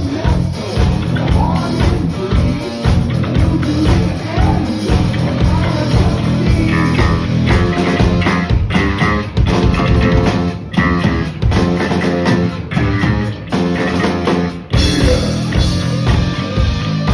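Heavy metal band music: electric guitars over a drum kit playing a steady, driving beat.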